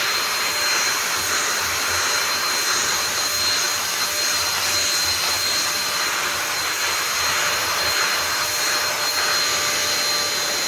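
Shimono Turbo C-06 2-in-1 vacuum cleaner and blower, an 800-watt unit, running steadily at full power: a loud, noisy rush of air with a constant high-pitched motor whine.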